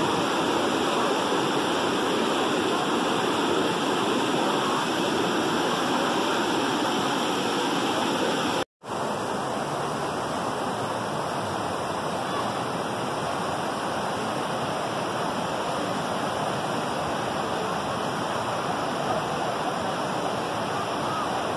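Rushing water of a river cascade pouring over rocks, a steady noise of white water. It cuts out for an instant about nine seconds in, then carries on a little quieter.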